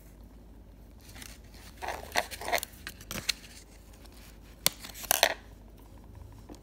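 Scissors snipping the small plastic fasteners that hold a doll bath mat to its cardboard backing: several short, crisp snips and rustles in clusters about two seconds in and again around five seconds.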